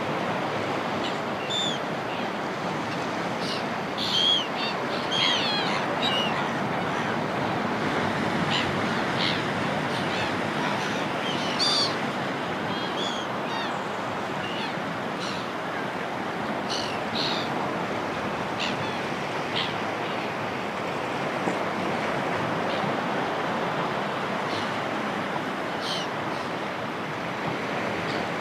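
Sea waves washing on the shore as a steady rush, with seagulls giving short, high calls over it now and then, a burst of several calls about four to six seconds in and a loud one near twelve seconds.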